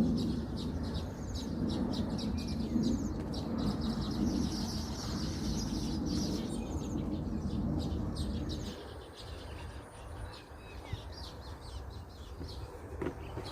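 Small birds chirping repeatedly, over a low rumbling noise that cuts off abruptly about nine seconds in.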